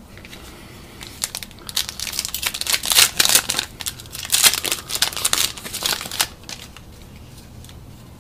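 A trading-card pack's foil wrapper being torn open and crinkled: a dense run of sharp crackles from about a second in, stopping about six seconds in.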